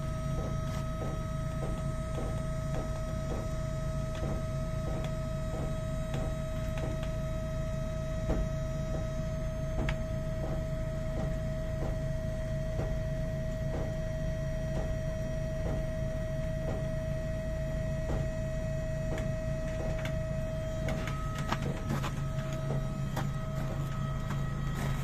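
Truck's diesel engine idling while it fills the trailer's air system, with a low hum, a steady whine over it and a light regular ticking about twice a second.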